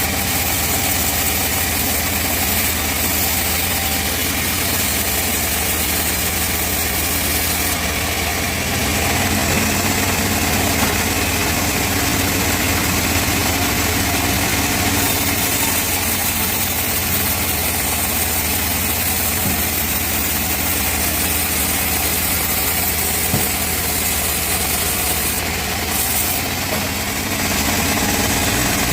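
Band sawmill running steadily while sawing teak wood: a constant machine drone with a low hum and a wide hiss.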